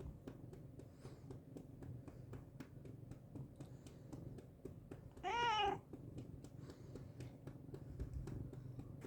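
Domestic cat meowing once, a short call that rises and falls in pitch, about five seconds in, over a low steady hum and faint scattered ticks.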